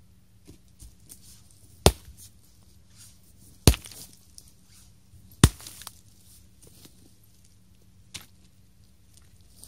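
Three hard knocks, evenly spaced about two seconds apart, followed by a lighter knock near the end.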